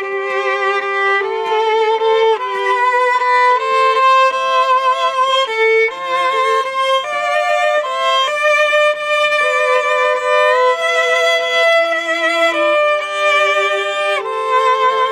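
Two violins playing a slow melody in long held notes with vibrato.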